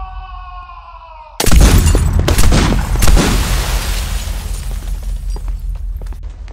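A held tone that slides slowly downward is cut off about a second and a half in by a sudden loud crash. The crash carries shattering and booming, with a few sharp strikes in its first two seconds, and rumbles away over several seconds.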